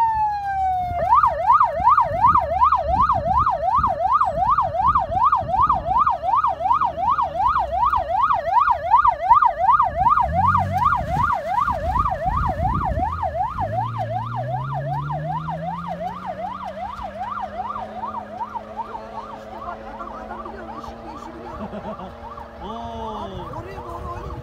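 Electronic vehicle siren yelping rapidly, about three up-and-down sweeps a second, slowly fading as the off-road SUV carrying it drives away across the snow. Underneath, the engine rumbles, then revs up and holds steady from about two-thirds of the way in.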